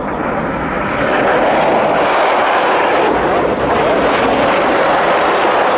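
Electric ice-racing car (Audi-bodied Trophée Andros racer) sliding through a snowy corner: a steady rushing noise of tyres scrabbling on ice and snow and spray flung up, swelling about a second in, with no engine note.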